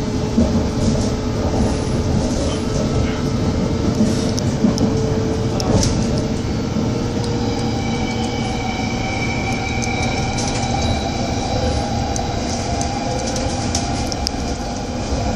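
London Underground District line train running, heard from inside the carriage: a steady rumble of wheels on the rails with scattered clicks. A faint steady whine comes in about halfway through.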